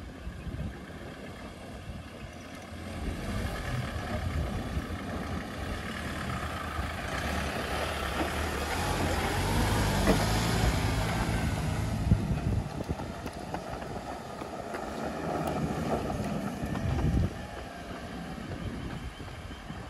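Land Rover Defender on 35-inch mud-terrain tyres driving past: its engine and tyre noise build as it approaches, are loudest as it passes close by about ten seconds in, then ease away, with the engine note dropping suddenly near the end.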